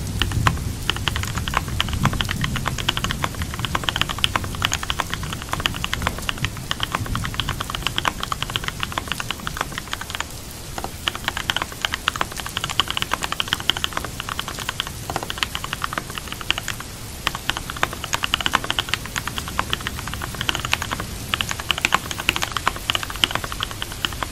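Fast typing on a computer keyboard, a steady patter of key clicks with brief pauses about ten and seventeen seconds in, over steady rain. A low rumble fades out within the first few seconds.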